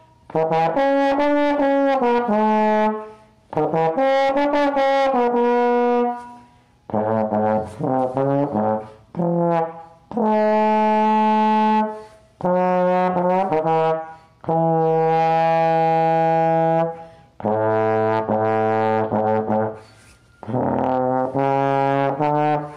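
A brass instrument playing a slow melody solo, in about nine phrases of one to three seconds with short breaks between them.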